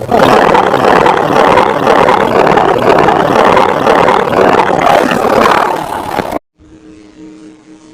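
Loud, harsh, heavily distorted noise from an audio-effects remix of the film soundtrack. It cuts off abruptly about six and a half seconds in, leaving a much quieter steady low hum.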